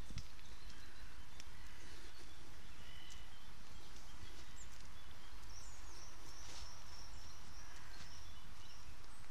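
Outdoor ambience: a steady low rumble with faint bird chirps, and a higher run of chirping from about halfway through to the end.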